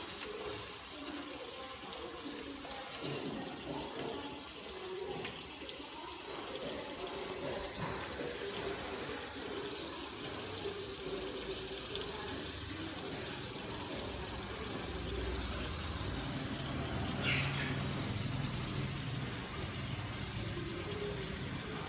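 Water running steadily from a kitchen tap.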